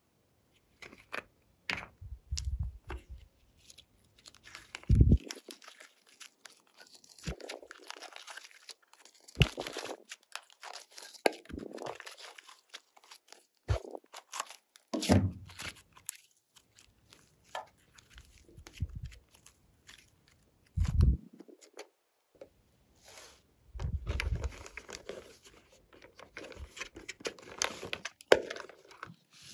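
Hands working glossy slime: irregular sticky crackles, clicks and tearing sounds as it is stretched and pressed, with several louder presses that carry a low thump.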